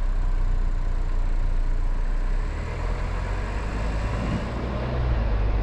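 Car driving on a highway: a steady low rumble of engine and tyres on the road.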